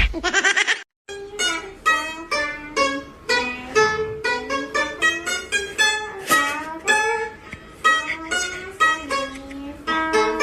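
Background music of quick, short plucked-string notes, starting about a second in after a sharp knock right at the start.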